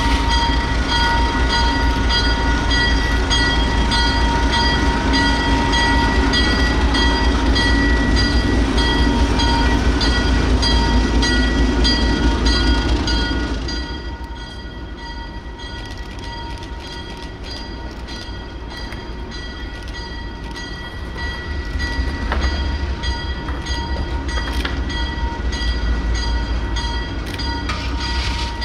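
ALCO S6 diesel switcher locomotive running as it hauls freight cars, with its bell ringing steadily over the engine. About halfway through, the sound drops to a quieter, more distant level, then grows again as the train comes closer.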